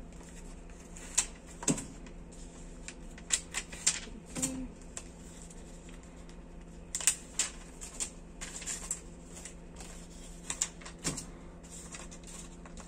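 Self-adhesive paper labels being peeled off a roll by hand: scattered short paper crackles and ticks, some in quick clusters, over a faint steady hum.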